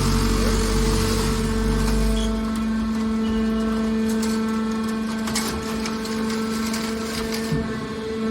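Scrap metal baling press running with a steady machine hum. A deep rumble under it fades out about two seconds in, and a few sharp metallic knocks come around the middle.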